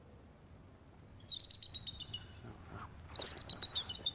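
A small songbird singing twice, each song a quick run of high chirps that steps down in pitch partway through, over faint outdoor background noise.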